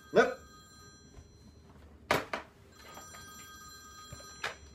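Telephone ringing twice, each ring a steady high multi-tone trill of about a second and a half to two seconds. Sharp knocks come at the start, between the rings and near the end, the loudest between the rings.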